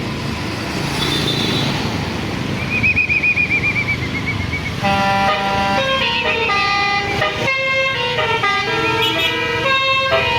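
A bus's basuri multi-tone telolet horn: after a warbling, siren-like tone, from about halfway it plays a quick melody of changing horn notes over the bus's engine and road noise.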